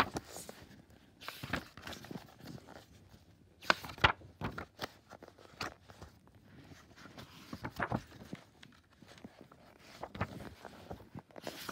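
Paper pages of a picture book being flipped and handled: irregular rustles and crisp flicks, with the sharpest flicks about four seconds in.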